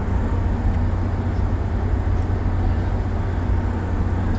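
Steady low rumble of a car ferry's engines and machinery, running without change.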